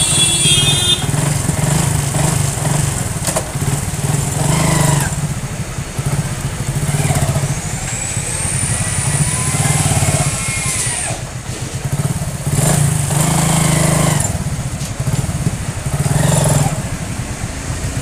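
Hero Honda Super Splendor's single-cylinder engine running steadily and swelling louder a few times. It has just had new gear pinions fitted in place of worn ones that caused a 'ghongo ghongo' noise in gear.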